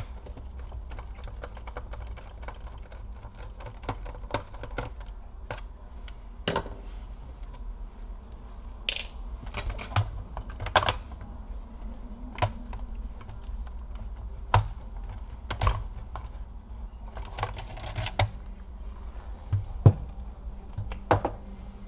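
Irregular small clicks, taps and short scrapes of a laptop being taken apart by hand: a small screwdriver working screws and hands handling the plastic casing. A few sharper knocks stand out among the clicks.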